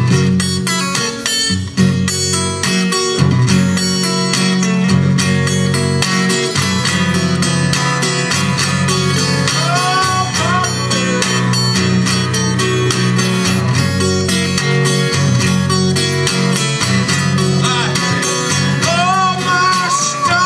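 Acoustic guitar played fingerstyle in a blues instrumental break, with a steady picked bass line under the melody notes; the guitar is a capoed 12-fret acoustic.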